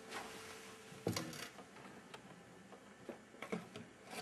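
Faint, scattered light clicks and small knocks, with a thin steady hum that stops about a second in.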